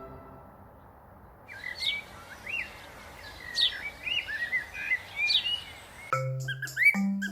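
Pet parrots chirping: short rising and falling chirps and quick whistled sweeps, a few a second, over a steady hiss. Background music fades out at the start and comes back in about six seconds in.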